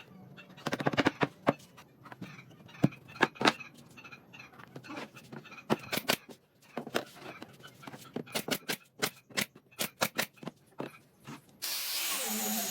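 A series of irregular sharp knocks and taps in a woodworking shop, then a power tool starts abruptly and runs steadily about a second before the end.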